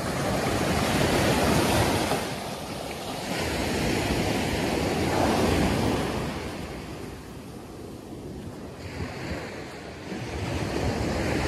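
Ocean surf breaking and washing up the sand, swelling loud three times, with wind rumbling on the microphone.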